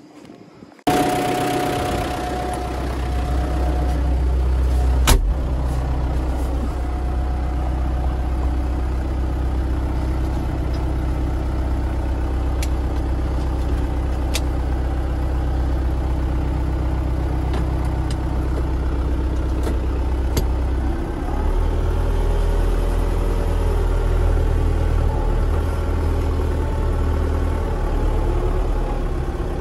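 A farm tractor's diesel engine running steadily, heard from inside its cab, coming in suddenly about a second in. There is a sharp click about five seconds in, and the engine note shifts about two-thirds of the way through.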